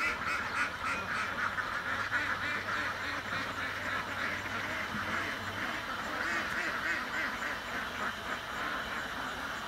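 A large flock of domestic ducks quacking, many calls overlapping in a continuous chorus.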